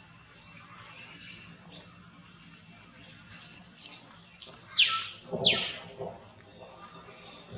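Birds chirping in short, high, repeated notes, with two louder downward-sweeping calls about five seconds in.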